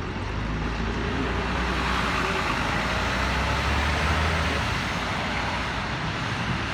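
LiAZ 5292.21 city bus running along the road: steady engine and road noise, the low engine note easing off about four and a half seconds in.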